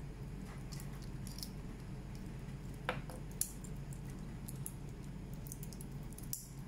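Faint handling of a stainless steel watch bracelet as the watch is put on the wrist, with scattered light ticks and two small sharp clicks about three seconds in, over a steady low hum.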